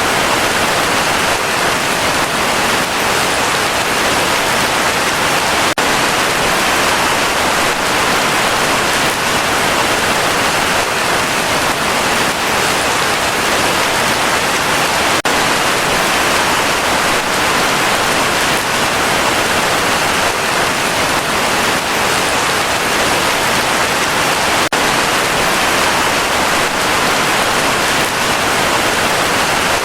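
Heavy rain falling steadily, a loud, even hiss with no let-up.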